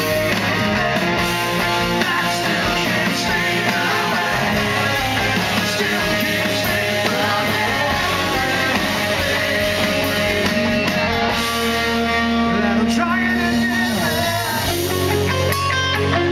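Live rock band playing, heard from the audience: a male lead vocal sung over electric guitars, bass and drums.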